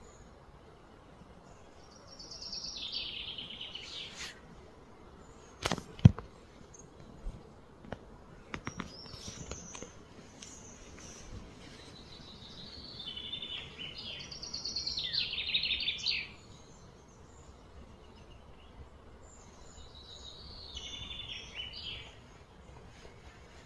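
Faint outdoor background with high, rapidly pulsed trilling calls that fall in pitch, heard three times for a few seconds each. A single sharp knock about six seconds in is the loudest sound, and a few lighter clicks follow.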